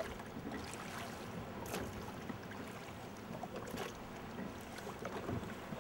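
Oar strokes in water as a small boat is rowed: splashing and trickling, with a stroke about every two seconds.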